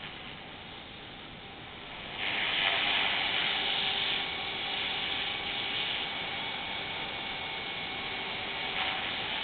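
CopterX 450 Pro electric RC helicopter flying close overhead: its rotor blades swish and its 430XL brushless motor and gears whine, and the sound grows suddenly louder about two seconds in as it comes near.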